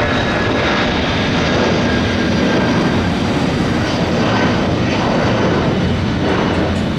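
Jet engines of a Malaysia Airlines Airbus A330 (Rolls-Royce Trent 700 turbofans) at climb power just after takeoff. They make a steady, loud rushing noise with a faint high whine over it.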